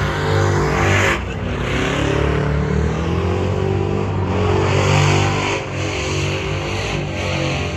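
Pickup truck engines held at high revs during burnouts and donuts, with the hiss of spinning, smoking tyres. The sound changes abruptly about a second in, as one truck's run gives way to another's.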